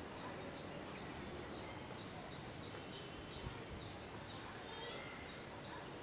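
Outdoor ambience: a steady low rumble of background noise with faint, high bird chirps scattered through it, and one brief thump about halfway.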